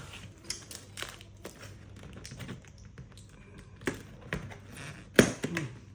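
Scattered light clicks and taps from a heavy parcel being handled, with one sharper knock about five seconds in.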